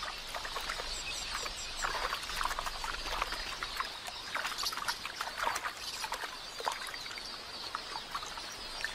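Repeated irregular water splashes as helmeted terrapins seize drinking red-billed quelea, over the steady high-pitched chatter of the quelea flock.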